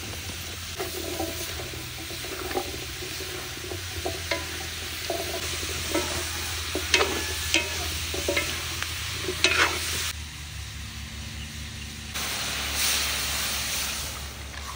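Food sizzling in a cooking pan while a utensil stirs it, knocking and scraping against the pan several times. The knocks stop after about ten seconds, and near the end the sizzle grows louder.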